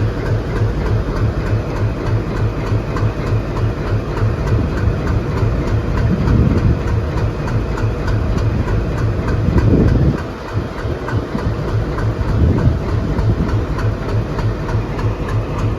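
ALCO WDM-3D diesel-electric locomotive's 16-cylinder ALCO 251 engine idling with a steady rhythmic low throb, swelling briefly louder a few times and dropping in level suddenly about two-thirds of the way through.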